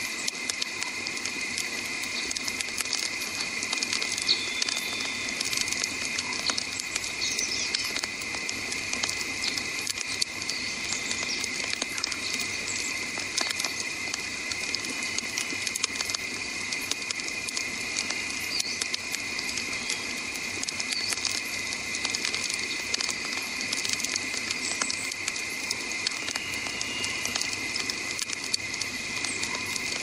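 Wood campfire of burning logs, crackling and popping constantly with many small sharp snaps, over a steady high-pitched background tone.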